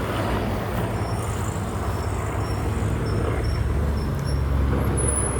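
Road traffic: a nearby motor vehicle engine runs with a steady low rumble that shifts in pitch about four seconds in, with faint short high-pitched tones over it.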